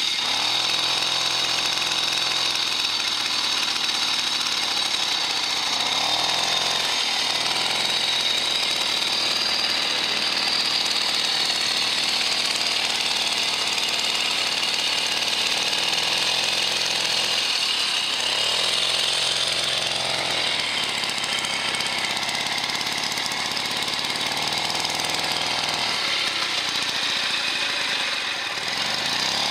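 Motobecane Mobylette AV3 moped's small two-stroke single-cylinder engine running continuously under way, its speed falling and rising several times.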